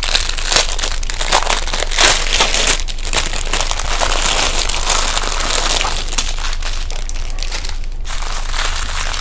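Clear plastic bags of diamond painting drills crinkling and crunching as they are handled and opened, the small packets of drills rustling against one another.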